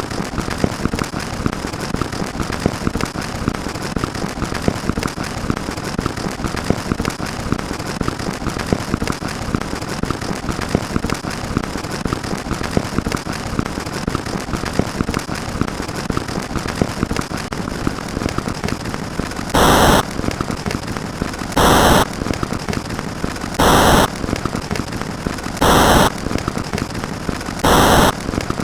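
Dense, steady crackling like a firecracker sound effect. About two-thirds of the way in, a short loud burst starts repeating every two seconds over it, five times.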